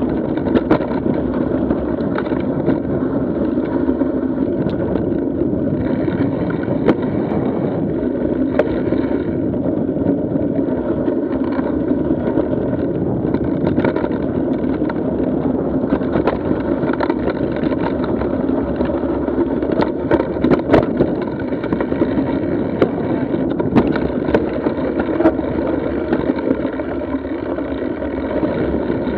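Mountain bike rolling over a rocky dirt singletrack, picked up by a camera mounted on the bike: a steady, muffled rumble of tyres and wind, with scattered sharp clicks and knocks as the bike rattles over rocks.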